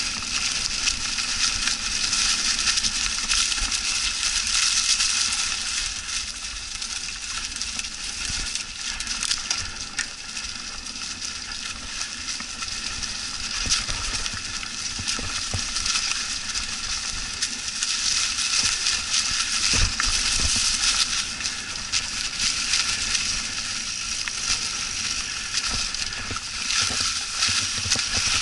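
Mountain bike tyres rolling through a thick carpet of dry fallen leaves: a continuous crunching, crackling hiss. Short knocks come through now and then, the sharpest about twenty seconds in.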